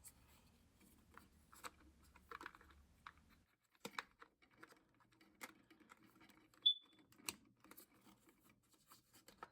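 Faint clicks and light handling of the plastic wiring connector and alarm housing as the new hardwired smoke alarm is fitted. About two-thirds of the way in, the alarm gives one short high-pitched chirp.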